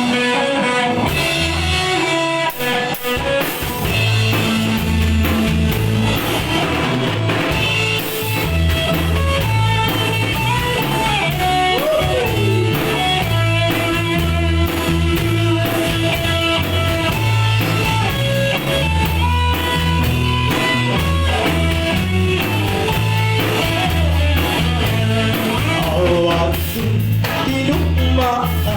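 Rock band playing the opening of a song: lead guitar melody over bass guitar and a drum kit keeping a steady beat.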